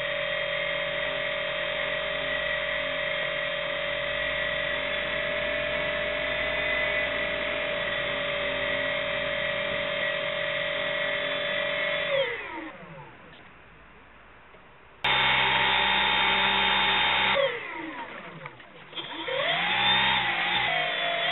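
Brushless electric motor and propeller of a radio-controlled airboat, whining at a steady high pitch. About twelve seconds in it winds down with a falling pitch. It comes back abruptly a few seconds later, winds down again, then speeds up again with a rising pitch near the end.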